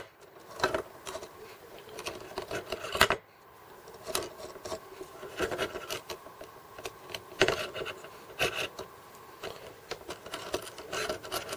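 Hands turning a carbon fiber delta arm so that its ball joint threads onto an M3 bolt: rubbing and many small scattered clicks of parts being handled, with a sharper click about three seconds in.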